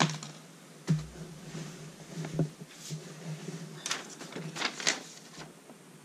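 Handling noises from a digital caliper being pulled off a bicycle crank arm and set down: a sharp click, then a knock about a second in, followed by scattered light clicks and rustles that cluster about four to five seconds in.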